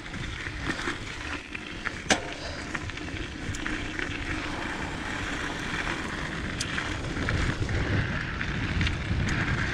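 Diamondback Mission 2 mountain bike descending a dirt trail: a steady rush of tyres rolling over dirt and gravel with wind rumbling on the microphone, growing louder in the second half, and scattered sharp clicks and knocks from the bike, the loudest about two seconds in.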